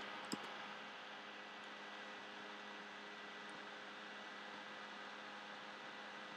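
Faint steady electrical hum and hiss of the recording's background noise, with one short click shortly after the start.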